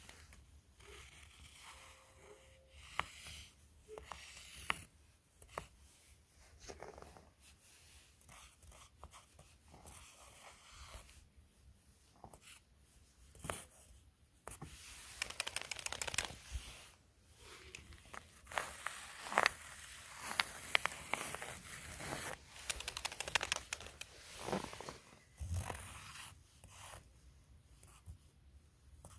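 Footsteps crunching in snow: a run of irregular crunches, louder and closer together for several seconds past the middle.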